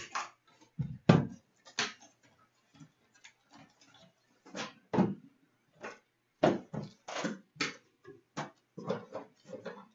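A cardboard trading-card box being opened by hand: a string of sharp knocks, taps and cardboard scrapes as the box is handled and set down on a glass counter. The loudest is a heavy knock about a second in.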